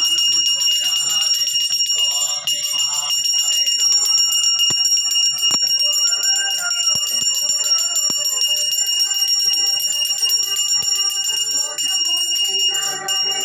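A puja bell rung rapidly and continuously during the aarti, a steady high-pitched ringing. Music plays faintly underneath.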